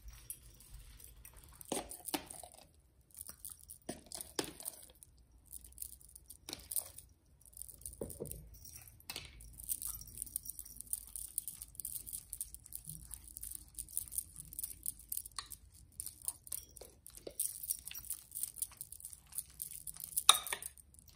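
A metal spoon scooping mayonnaise and stirring it into diced potatoes, minced onion and egg whites in a glass mixing bowl. Soft wet scraping comes with scattered clinks of the spoon against the glass, the sharpest near the end.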